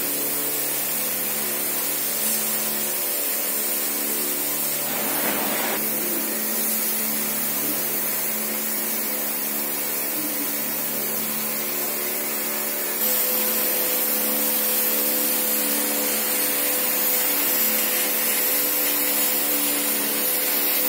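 Steady machine drone with a hum, stepping up in loudness about two-thirds of the way in as a higher tone joins.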